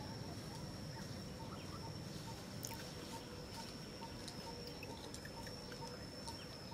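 Faint forest insect chorus: a steady high-pitched drone, with a lower note pulsing about twice a second and a few scattered faint chirps.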